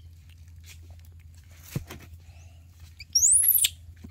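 A single short, high-pitched squeak about three seconds in, sweeping sharply up in pitch and back down. It is the loudest sound here. Before it there are only a few faint small clicks.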